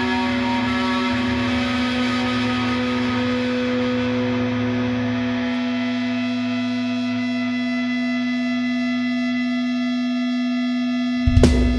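Heavy metal music: a held, ringing chord with effects sounds steadily and slowly thins out, then near the end the full band comes in with loud, sharp hits.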